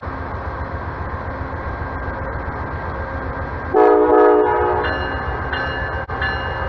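Freight train rumbling steadily, then a loud blast of a locomotive's multi-chime air horn about four seconds in, followed by a few short, fainter high tones.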